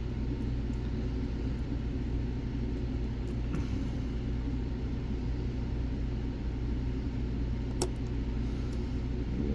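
Steady low rumbling hum with faint ticks of a hook pick working pin-tumbler pins under a turning tool's tension, and one sharp click about eight seconds in.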